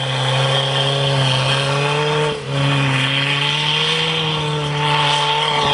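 Toyota 4x4 truck's engine held at high revs under load as it climbs a slick snowy slope, its pitch nearly steady with a brief dip about two and a half seconds in.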